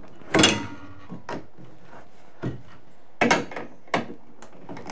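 White metal baby gate knocking and rattling as it is unfastened and taken down from a doorway: a series of separate clanks and knocks, the loudest about half a second in with a brief metallic ring, more around three to four seconds in.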